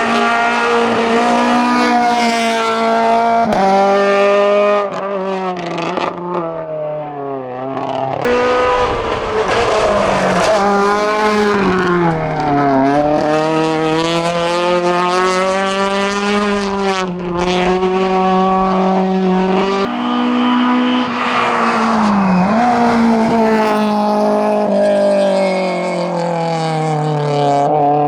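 Hillclimb cars at full throttle: a Volkswagen Golf GTI Mk2 and then a Citroën Saxo. The engine revs climb through each gear and dip at every shift or lift, several times over.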